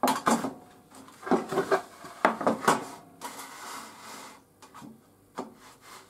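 A rough wooden board knocking and scraping as it is set down and slid across the aluminium table of a table saw into place against the fence. The sounds come in three bunches in the first three seconds, then softer scuffs.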